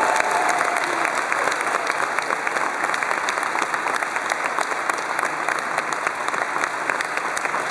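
Wedding congregation applauding: many hands clapping in a steady, dense patter.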